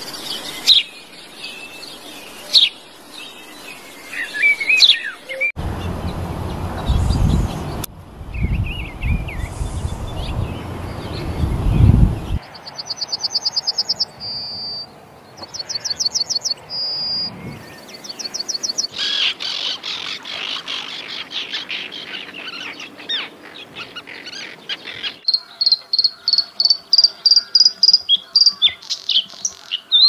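Small songbirds singing and calling in a string of short clips that change every few seconds: quick high chirps, fast trills of rapidly repeated notes, and near the end a long run of repeated ringing notes. Through one stretch in the first half a low rushing noise lies under the calls.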